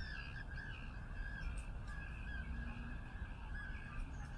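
Faint, repeated short animal calls over a steady low rumble.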